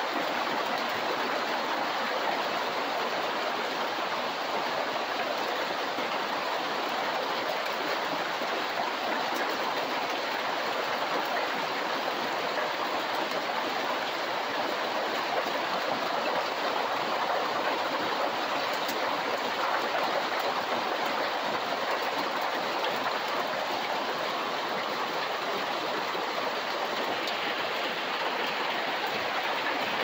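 Rain falling steadily on a corrugated roof and outside the screened windows: an even, continuous hiss with no breaks.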